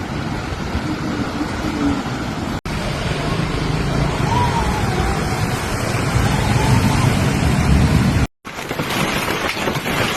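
Steady roar of a heavy hailstorm with rain over street traffic, faint voices under it. The sound breaks off sharply twice between clips.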